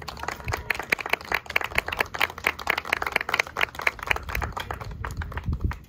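A small crowd clapping: a dense patter of many hands that cuts off suddenly at the end.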